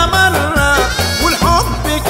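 Tunisian folk music in an instrumental passage: a gliding melody line over a rhythmic beat.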